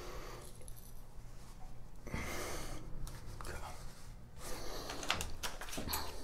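A person's soft breathing with faint handling noises, quiet, with one stronger breath about two seconds in.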